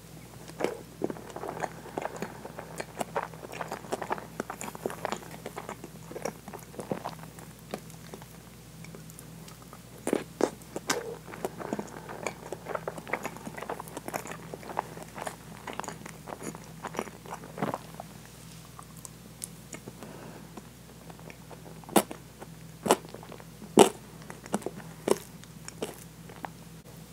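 Close-miked wet chewing and mouth smacks of eating very soft, custardy French toast with whipped cream, a steady stream of small clicks. A run of louder, sharper clicks comes near the end.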